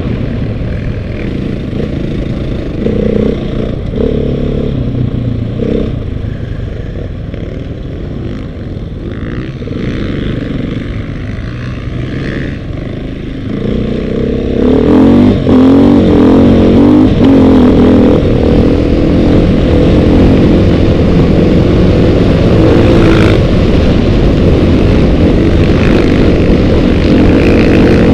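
KTM dirt bike engine being ridden hard, its pitch rising and falling with the throttle, getting much louder about halfway through and staying loud.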